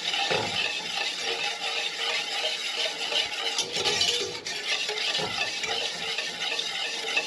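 A utensil stirring coconut milk and sugar continuously in a saucepan on the stove, a steady, uneven stirring noise. The stirring keeps the heating mixture from thickening on the bottom of the pan.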